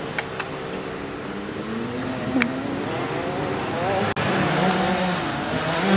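Two-stroke Yamaha YZ250 motocross engine running at idle, its pitch wavering up and down. A few sharp clicks come in the first half second, and a louder one about two and a half seconds in.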